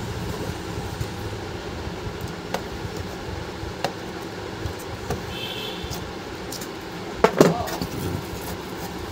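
Small metallic clicks and taps from handling the wiring and carbon-brush holders of an opened mixer grinder motor, over a steady low background rumble. About seven seconds in comes a louder sharp sound that slides down in pitch.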